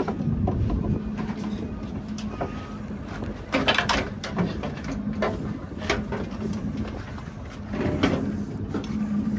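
A boat engine idling with a steady hum, with scattered clicks and knocks and three brief louder noisy surges, at about three and a half, six and eight seconds in.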